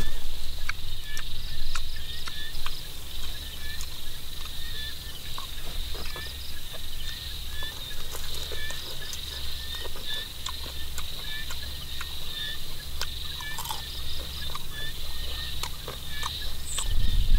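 Small dry cracks and crunches of a deep-fried giant water bug's shell being pulled apart and chewed, heard as scattered sharp clicks. Behind them runs a steady chorus of rapid chirping calls and a low rumble.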